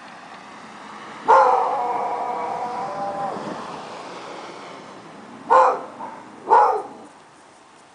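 A dog howling once, a drawn-out call of about two seconds, then giving two short barks about a second apart.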